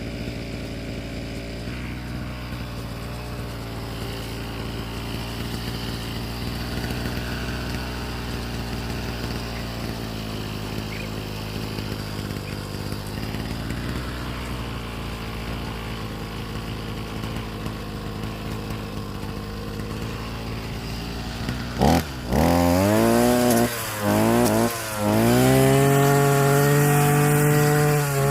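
Petrol weed cutter (brush cutter) engine idling steadily, then revved hard about 22 seconds in: the pitch rises sharply, drops back twice briefly, and is held at full throttle near the end as it cuts bush.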